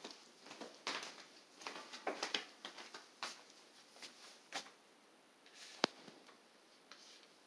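Faint, irregular shuffling footsteps on a ceramic tile floor mixed with phone handling rustle, with one sharp click about six seconds in.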